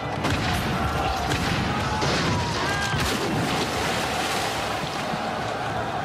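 Battle din of musket volleys and cannon booms over rushing river water, with a large splash in the river.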